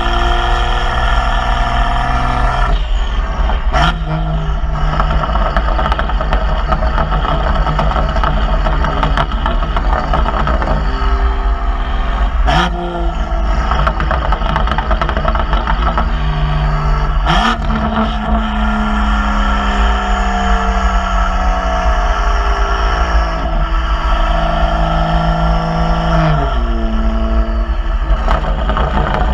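2018 BMW M2's turbocharged straight-six running through its M Performance exhaust and aftermarket downpipes, heard right at the tailpipes while driving. The engine note steps and glides in pitch through gear changes, with three sharp cracks from the exhaust, and falls away sharply near the end. A steady wind rumble runs underneath.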